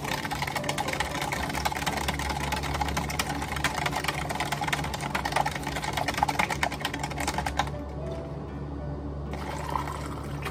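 A long metal spoon stirring ice in a plastic cup of iced tea: a rapid, continuous rattle and clinking that stops about eight seconds in. Near the end, water is poured into the cup from a pitcher.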